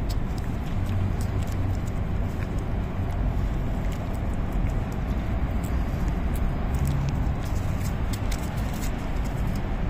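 A cat licking and lapping at a squeeze tube of Churu treat paste, heard as faint irregular small clicks over a steady low rumble of background noise.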